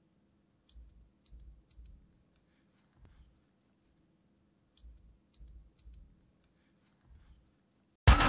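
Faint, separate key presses on a Cherry G80-3000S TKL mechanical keyboard with clicky Cherry MX Blue switches: about eight clicks, each with a soft thump, coming in small groups a second or two apart. Loud electronic music cuts in right at the end.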